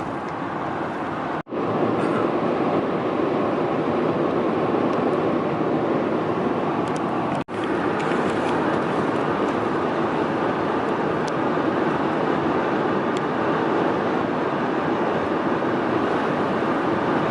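Steady road and tyre noise inside a car's cabin at highway speed, broken twice by a split-second drop-out.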